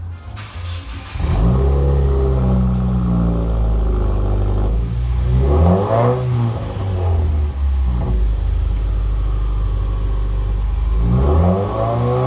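2015 Subaru WRX's turbocharged flat-four exhaust through a straight-piped axle-back muffler delete, idling and revved several times, with bigger revs about halfway and near the end. It sounds a lot deeper and a lot throatier.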